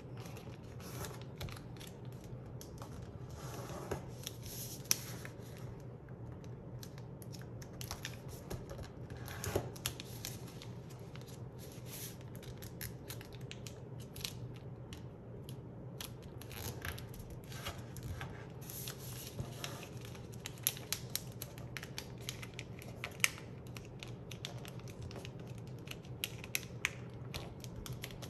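A sheet of paper being folded by hand into a paper airplane: irregular rustling and crinkling with sharp little clicks as fingers press and run along the creases on a tabletop, over a steady low hum.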